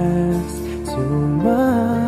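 Music with long held notes; one note slides upward about a second and a half in.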